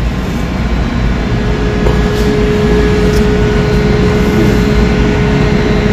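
Ship's machinery running with a steady low rumble and a constant hum, growing a little louder over the first seconds.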